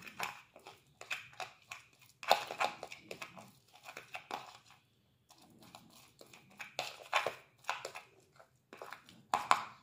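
A metal fork stirring and mashing soft butter with chopped garlic and coriander in a plastic bowl: irregular scraping and squishing strokes against the bowl, some louder than others.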